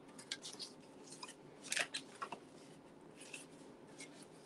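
Cardstock box being handled and slid about on a craft mat: a few faint, brief paper rustles and scrapes, the loudest a little before two seconds in.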